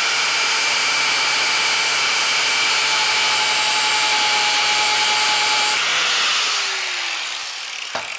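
Angle grinder with a flap disc grinding the edge of a steel lawn mower blade, a loud steady whine with several high tones. About six seconds in the grinder comes off the work and winds down, its pitch falling.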